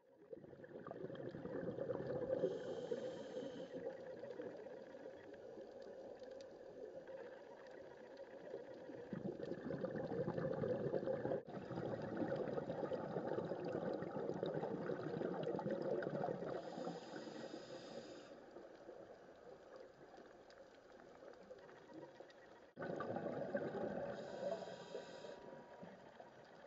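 Underwater bubbling and gurgling from a scuba dive, the sound of a diver's exhaled air bubbles, with a brief higher hiss three times. The sound breaks off and changes abruptly twice.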